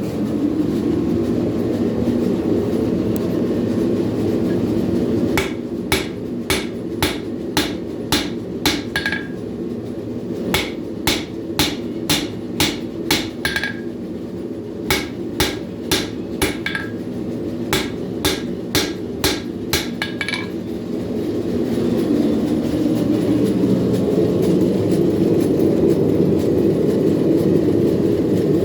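Hand hammer striking hot steel on an anvil, forging a knife's bevels: four runs of evenly spaced blows at about two a second, a few ending with a brief metallic ring. A steady low roar runs underneath, louder before and after the hammering.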